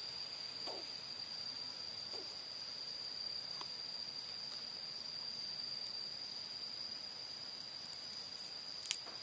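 Steady high-pitched insect whine outdoors, with two faint short calls in the first couple of seconds and a single sharp click near the end.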